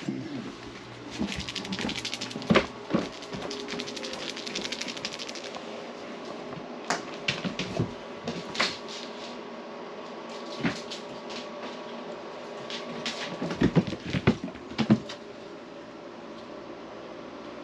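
Handling and movement noise in a small room: a few seconds of rapid fine clicking near the start, then scattered knocks and clicks, the loudest cluster near the end, over a steady fan-like hum.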